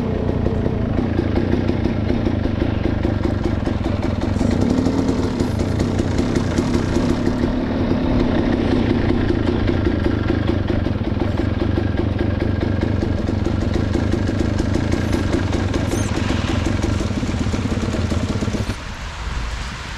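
Motorcycle engine running steadily. About a second before the end its sound drops away abruptly, leaving quieter noise.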